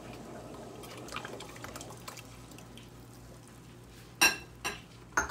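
A thickener of dissolved flour poured from a small bowl into a stainless steel pot of simmering gravy, a soft liquid pour with light drips. Near the end, three sharp ringing metal clinks against the pot.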